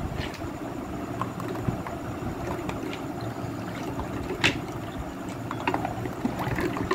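A steel ladle stirring sattu sharbat with ice cubes in a metal pot: the liquid sloshes steadily, and the ice and ladle click against the sides now and then, most sharply about halfway through.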